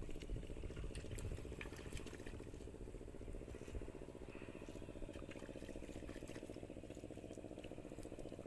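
Faint, steady hum of a distant motor, with scattered light clicks and an uneven low rumble during the first half.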